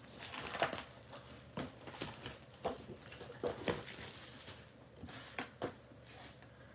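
Sheets of designer series paper being unwrapped and handled, rustling and sliding in a string of short, irregular crackles.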